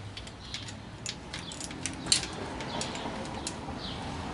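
Scattered light clicks and taps of hands and small metal parts being handled around a motorcycle engine, irregular and unhurried, over a faint low hum.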